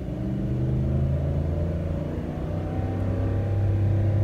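Ram 1500 pickup engine heard from inside the cab, running at high revs and pulling steadily as the truck speeds up still held in first gear. The transmission will not upshift, a fault the owner ties to the battery having gone flat and been jump-started.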